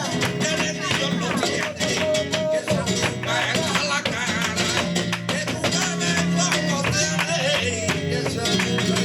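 Live flamenco tangos: flamenco guitar playing with a male singer's wavering cante and many sharp percussive strikes over the music.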